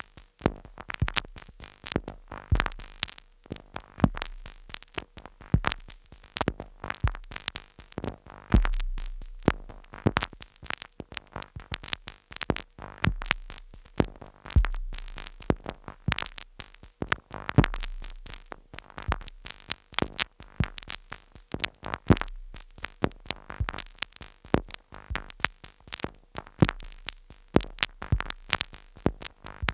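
Two Behringer Neutron analog synthesizers playing a sequenced glitch-noise pattern: a dense, irregular stream of sharp clicks and noise hits, punctuated every second or two by deep bass thumps. No effects, only light compression.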